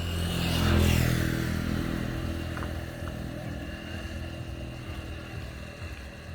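An engine running, getting louder to a peak about a second in and then slowly easing off.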